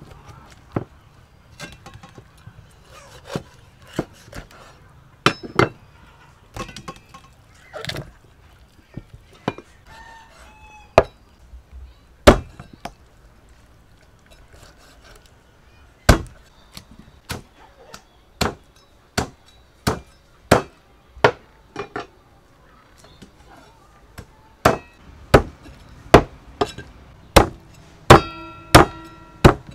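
Cleaver chopping a raw chicken into pieces on a thick round wooden chopping block. Sharp chops come scattered at first, then steadily about one and a half a second from about halfway. The last few strokes leave a metallic ring.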